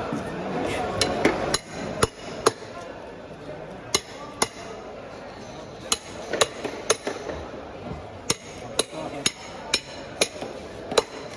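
Knife cutting through a large fish on a wooden cutting board: irregular sharp knocks, about one or two a second, as the blade strikes through to the board.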